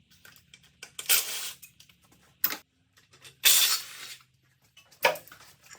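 Metal hand tools and engine hardware clanking and clinking while parts are taken off an engine: three short scraping clanks about a second, three and a half and five seconds in, with a sharp click and small ticks between them.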